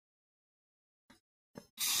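Silence, then two brief faint noises, then near the end a gravity-feed paint spray gun starts a loud, steady hiss as it sprays.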